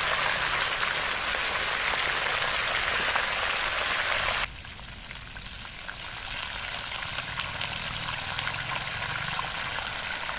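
Hot oil sizzling and crackling as food fries. The sizzle drops sharply about halfway through, then carries on more quietly and slowly grows louder again.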